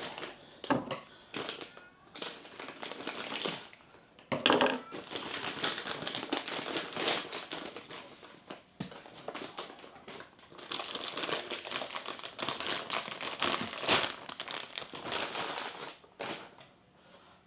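Clear plastic bag crinkling and rustling in irregular bouts as a car stereo head unit is worked out of it by hand, dying down near the end.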